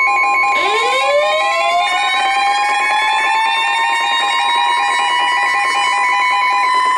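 Emergency alert tones: a steady high warning tone and a fast pulsing beep. About half a second in, a siren winds up, rising steeply in pitch and then holding. The pulsing beep stops near the end.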